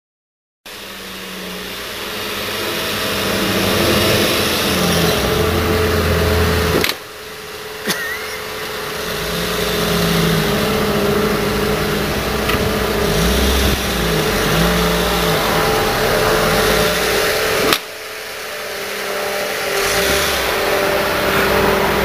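Peugeot car engine running while the car is manoeuvred into a parking space, its pitch rising and falling as it is revved. The sound breaks off abruptly twice.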